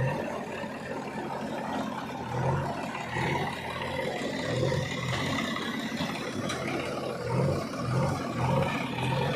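Heavy diesel engine running at work, its low drone swelling and easing in repeated surges as it takes and sheds load.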